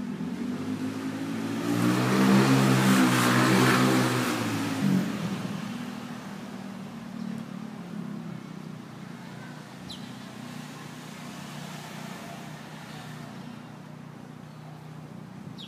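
An engine running with a steady low hum. About two seconds in it swells much louder for roughly three seconds, its pitch rising and falling with a rushing hiss, then settles back to the steady hum.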